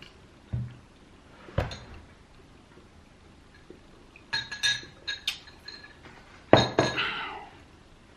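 Clinks and knocks of tableware being handled, some with a short ringing tone. Two single knocks come early, a quick run of ringing clinks a little past four seconds in, and the loudest clink about six and a half seconds in.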